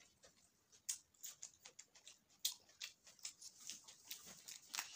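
A person chewing a mouthful of bhatura and chole with lips smacking: faint, irregular wet mouth clicks, several a second.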